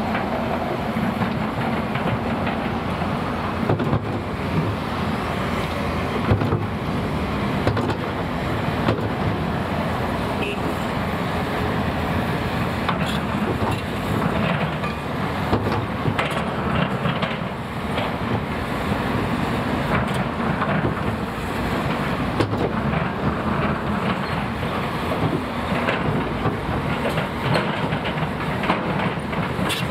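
Heavy demolition machinery at work: an excavator's engine running steadily under frequent irregular knocks and clatter of rubble being broken and moved.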